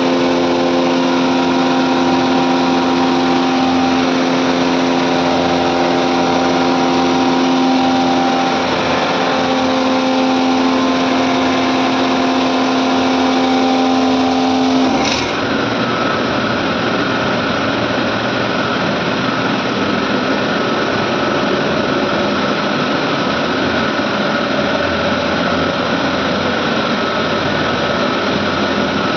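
Medical air compressors running with a loud, steady machine hum carrying several steady tones. About halfway through the sound changes abruptly to a denser noise with one higher tone.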